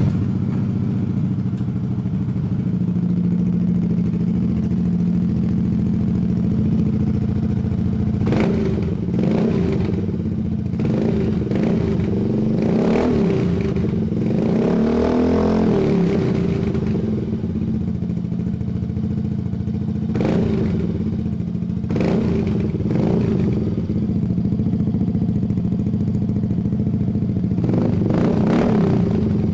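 Yamaha Mio GT scooter's single-cylinder four-stroke engine running through an R9 aftermarket exhaust with a deep, bassy note, idling steadily and blipped on the throttle about eight times, the longest rev about fifteen seconds in.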